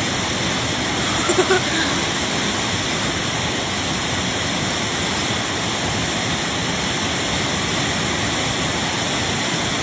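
Steady rush of a flood-swollen mountain river torrent.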